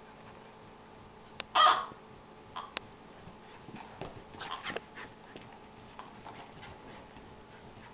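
Miniature schnauzer giving one short, sharp bark while playing, about one and a half seconds in, followed by a few light clicks and fainter play noises.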